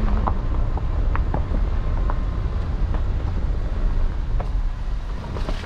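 Wind buffeting the microphone: a loud, uneven low rumble, with a few faint short ticks over it.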